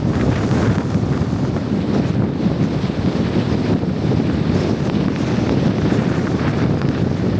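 Strong blizzard wind blowing across the microphone: a loud, steady, fluttering rush, heaviest in the low end.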